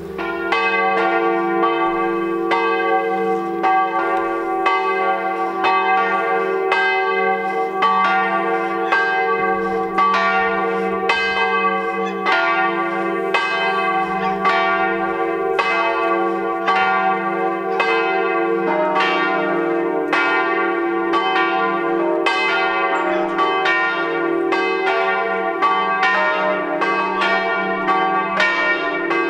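Peal of swinging bronze church bells, tuned to a diatonic scale in E-flat, ringing together in a continuous, overlapping stream of strokes. The peal begins loudly right at the start and rings on without a break.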